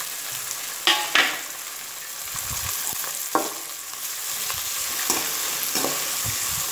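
Chopped onion, green chilli and freshly added tomato sizzling in hot oil in a metal pan while being stirred. A slotted metal spoon scrapes and clinks against the pan several times over a steady frying hiss.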